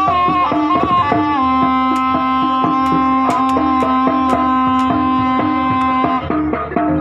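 Jaranan ensemble music: a reed horn holds one long note over steady hand-drum strokes, then breaks off near the end as the melody moves on.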